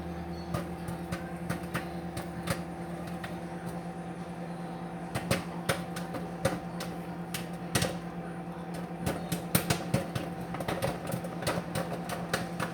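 Bagged microwave popcorn popping inside a running microwave oven: irregular sharp pops over the oven's steady hum, coming more often from about halfway through.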